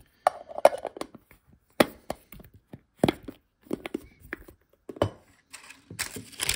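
Cardboard box and booster packs being handled and set down on a table: a string of sharp taps and knocks about a second apart, with light rustling between them.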